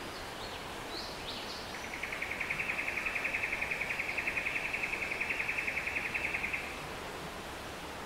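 Steady rush of a rainforest stream. Over it, an animal's rapid, evenly pulsed trill starts about two seconds in and lasts some five seconds. A few brief high chirps come just before it.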